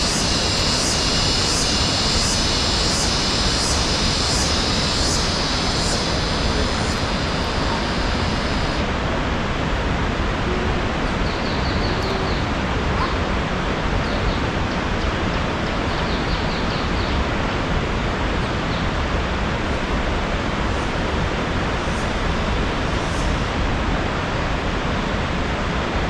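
Waterfall: a loud, steady rush of falling water. A high, rhythmic pulsing call, about two pulses a second, rides over it and stops about nine seconds in, then comes back more faintly for a few seconds.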